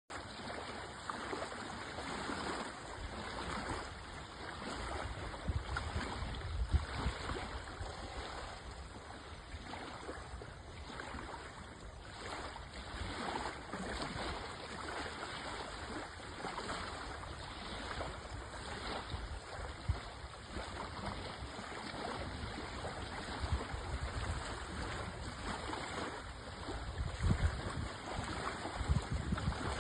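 Water gurgling and splashing along the hull of a small one-design sailboat under way, with low rumbling gusts now and then, the strongest about six seconds in and near the end.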